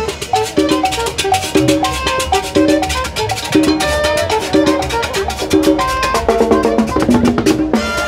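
Live Latin dance band playing an upbeat instrumental: drums and percussion keep a steady dance beat under short repeated brass and bass notes.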